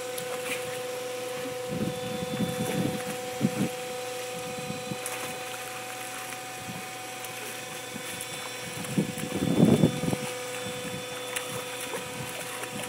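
Water splashing as a large dog paws and bites at a pool bubbler jet in shallow water, over the jet's steady spray and a constant hum. The splashing comes in bursts and is heaviest about nine to ten seconds in.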